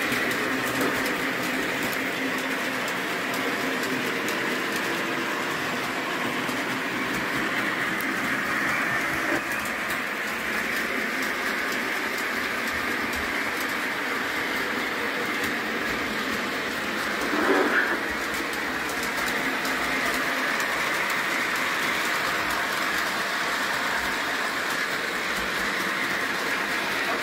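O-gauge model trains running on a layout: a steady whir of motors and wheels rolling on the track, with a brief louder sound about two-thirds of the way through.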